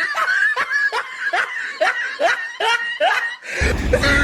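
A snickering laugh: a quick run of short 'heh' syllables, each rising in pitch, about three a second. It stops about three and a half seconds in and a low rumble takes over.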